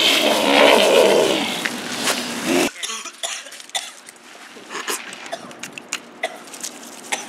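A person's loud, throaty cough-like vocal sound for the first few seconds. It is cut off abruptly and followed by quieter scattered clicks and rustles.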